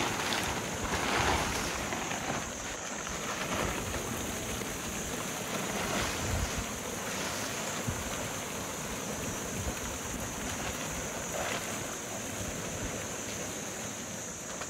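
Nylon tent fabric rustling as it is shaken out and spread flat on gravel, loudest in the first couple of seconds, over a steady background hiss.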